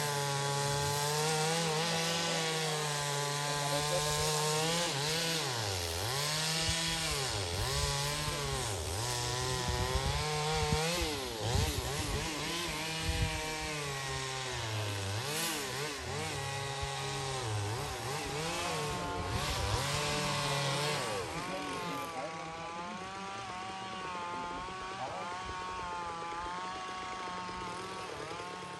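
A small engine running with a pitched drone whose pitch repeatedly dips and recovers, roughly once a second, through the middle of the stretch, then holds steadier near the end.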